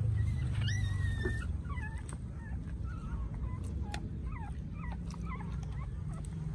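Dog whimpering: a string of short, high whines that rise and fall, with one longer whine about a second in, over a steady low rumble.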